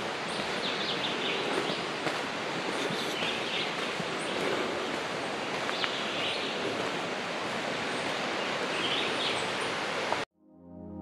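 Outdoor tropical-forest ambience: a steady rushing background noise with birds chirping now and then. About ten seconds in it cuts off suddenly and soft ambient music fades in.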